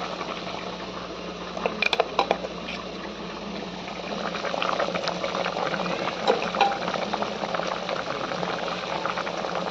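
Chicken curry bubbling at a steady boil in the pot, with a few sharp clicks about 2 seconds in and again near 6.5 seconds.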